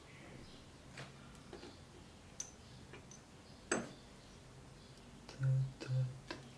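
Small lens parts, glass elements and metal rings, clicking and tapping as they are handled and set down, a scattering of separate light clicks with a sharper one a little before the middle. Near the end come a few short, low, dull bumps among more clicks.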